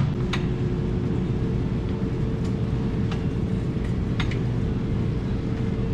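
Quickie power wheelchair driving: its motors hum steadily with a low rumble from the wheels rolling on the store floor, plus a few faint clicks.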